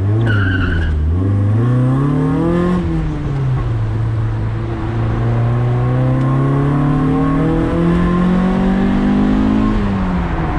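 Mazda Miata's four-cylinder engine pulling through the gears in the open-top car: revs climb for about two seconds, fall at an upshift, then rise slowly again before another upshift near the end. A brief high-pitched tone sounds near the start.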